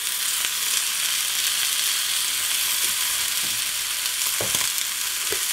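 Burger patty frying with a steady sizzle, with a couple of faint knocks in the second half.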